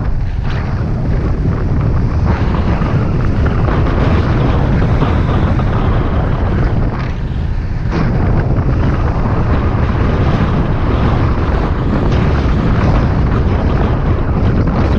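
Wind buffeting the microphone while riding an electric bicycle at speed: a steady low rumble that eases briefly about seven seconds in.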